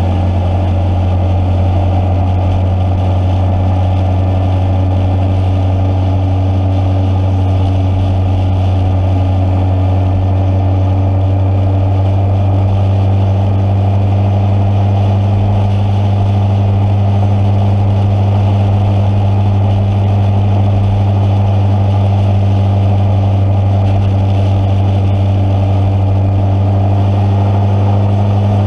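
Motorcycle engine running at a steady cruising speed: a constant, even drone that holds its pitch throughout.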